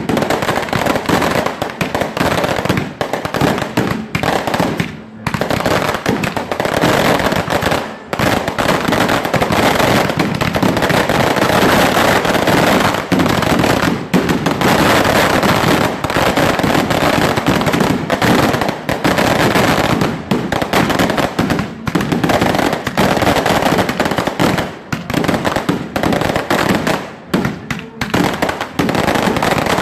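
Fireworks going off in a dense, continuous barrage of rapid bangs and crackles, easing briefly about five and eight seconds in and growing more broken near the end.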